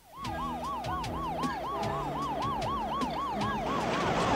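Ambulance siren yelping: a fast rising-and-falling wail, about four cycles a second, getting louder near the end.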